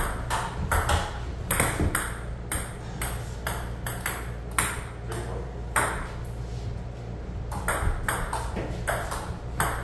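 Table tennis ball clicking against paddles and the table top in a rally, sharp ticks at an uneven pace with a few short pauses.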